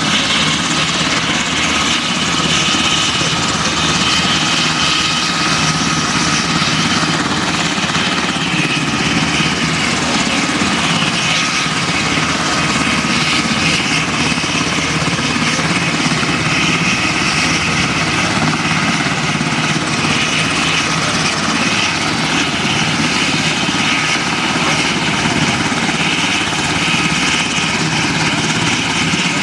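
Army Black Hawk helicopter running on the ground: a steady turbine whine with a high tone over the continuous rush of its turning rotors.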